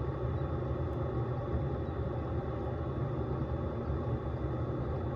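Single-serve K-Cup coffee maker running with a steady low hum.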